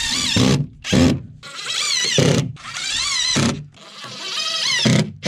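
Cordless drill driving screws through OSB plywood into a wooden pallet, in about five bursts with short pauses between them. The motor's whine wavers up and down in pitch as each screw bites and sinks.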